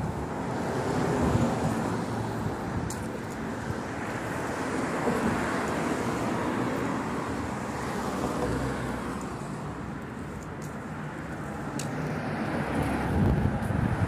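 Road traffic passing as a steady rush that swells and fades, with wind buffeting the phone's microphone.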